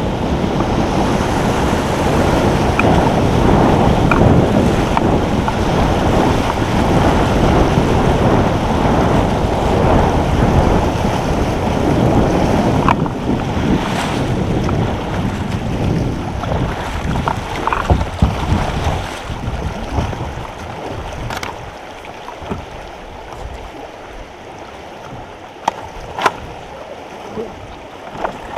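Rushing water of shallow creek rapids around a kayak, with wind buffeting the microphone. The rush eases over the last several seconds, and a few sharp knocks come through.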